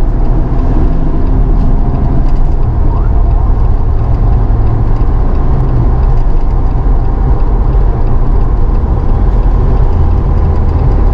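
Steady road and engine noise of a Jeep Wrangler JL cruising at highway speed, heard from inside the cabin, with a deep low rumble as the strongest part.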